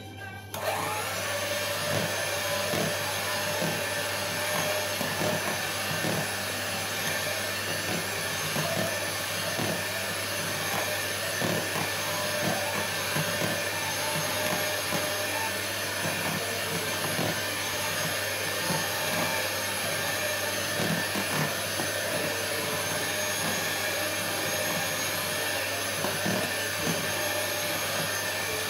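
Electric hand mixer starting up about half a second in and running steadily with a high whine, its beaters churning thick pound-cake batter of butter, sugar and flour in a plastic tub, with irregular light knocks throughout.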